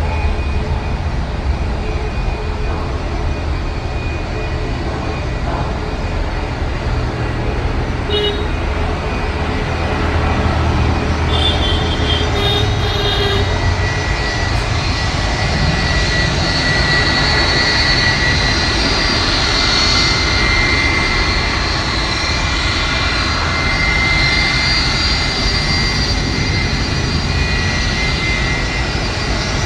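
Boeing 757 freighter's jet engines running as it rolls along the runway: a steady rumble with a high whine that grows louder about halfway through.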